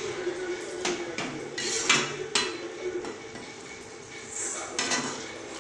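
Perforated steel ladle scraping and knocking against a metal kadai while stirring chicken pieces and tomatoes, with several sharp clinks spread through the stirring.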